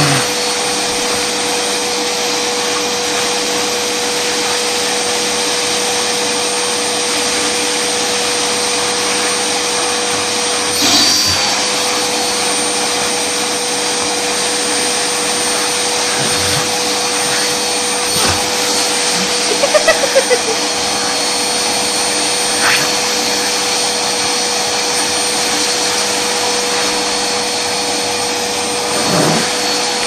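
Canister vacuum cleaner running steadily with a constant whine, its brush nozzle being drawn through a cat's fur. Its note shifts briefly about eleven seconds in, and there are a few quick knocks around twenty seconds in.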